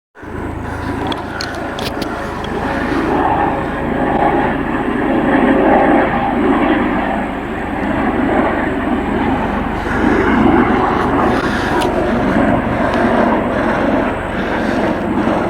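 Military helicopter flying overhead: loud, steady engine and rotor noise that swells and eases slightly.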